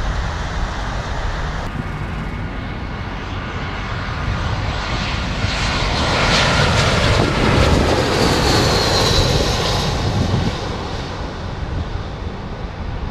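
Twin-engine jet airliner passing low overhead on final approach. Its engine noise swells to a peak about halfway through, with a high whine that falls in pitch, then fades as it passes.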